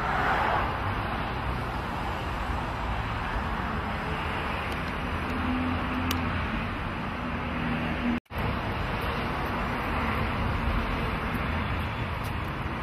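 Steady city-street traffic noise, a constant wash of passing cars, that cuts out for an instant about eight seconds in.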